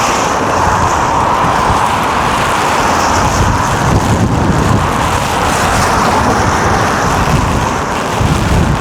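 Strong gale wind blowing against the microphone: a loud, steady rush with low buffeting rumble throughout.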